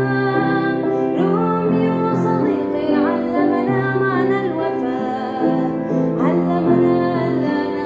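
A woman singing a slow, tender Arabic song, accompanying herself on piano with held bass notes under the melody.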